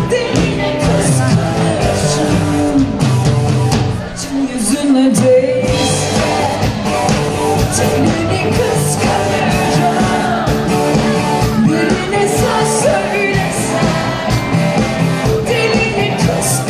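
Live pop-rock concert music: a band with steady drum beats plays under a lead singer's vocals, easing briefly about four seconds in.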